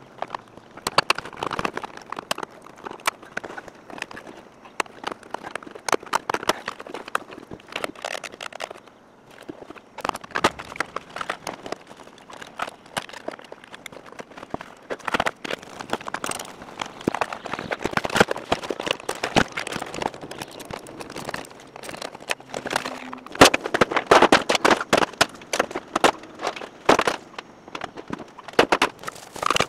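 A dense, irregular run of clicks, knocks and rattles from plastic dashboard trim and wiring harness being worked loose and handled. The knocks are loudest a little past two-thirds of the way through.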